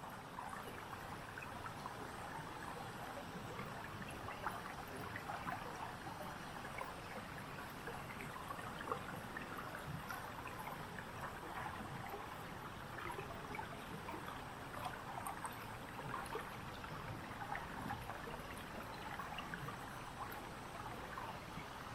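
Stream water flowing and trickling steadily, with many small splashes throughout.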